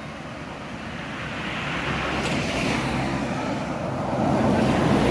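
Road traffic passing close: engine and tyre noise of vehicles swelling as they go by, loudest about two seconds in and again near the end, with a steady low engine hum under the second pass.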